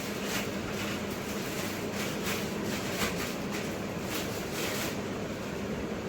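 Steady mechanical hum of room equipment such as an air conditioner or fan, with soft brushing or rustling sounds recurring irregularly over it.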